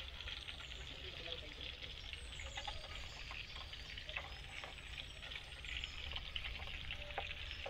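Chicken leg pieces frying in oil in a kadai: a low, steady sizzle with scattered small pops and crackles.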